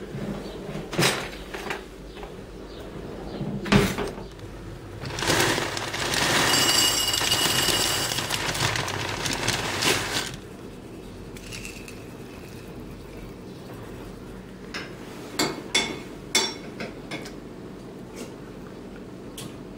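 Kitchen handling sounds: a drawer and dishes clicking and knocking, then about five seconds of something being poured into a ceramic bowl, then a spoon clinking against the bowl a few times near the end.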